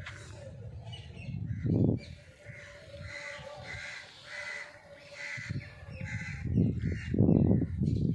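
A crow cawing repeatedly, about six caws in quick succession through the middle, over low gusty rumbles of wind on the microphone that grow loudest near the end.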